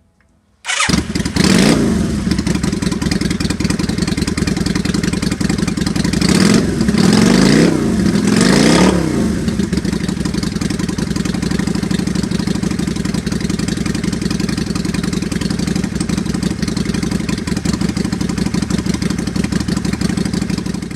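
1992 Yamaha Virago XV535 motorcycle's air-cooled V-twin engine firing up about a second in, revved three times, then idling steadily. It is the engine's first run after a no-spark fault from a damaged ignition wire was repaired.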